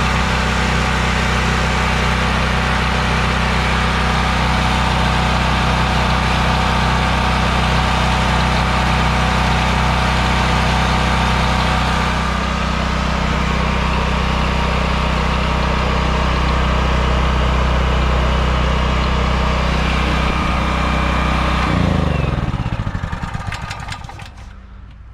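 Westinghouse WGen3600v portable generator's small single-cylinder gasoline engine running steadily. About 22 seconds in it is switched off, and its pitch falls as it spins down to a stop.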